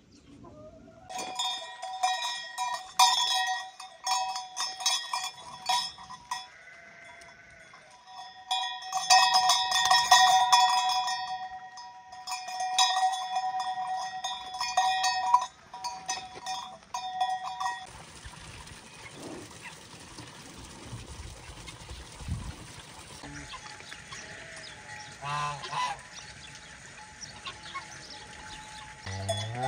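Metal animal bells clanking irregularly, ringing at the same few fixed pitches over and over, then stopping abruptly a little past the middle. After that come quieter farmyard sounds with a couple of brief animal calls near the end.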